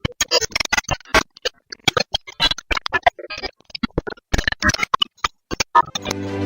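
A rapid, irregular string of sharp clicks and short electronic blips, then a sustained synthesizer music chord comes in near the end.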